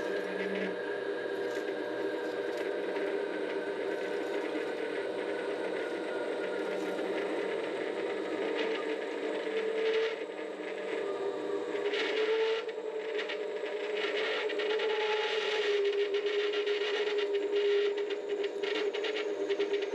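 Vevor 7x12 mini-lathe running, its motor giving a steady whine that drifts a little in pitch, with a cutoff tool scraping into the spinning metal stock. The scraping grows busier in the middle of the stretch, from about twelve to seventeen seconds in.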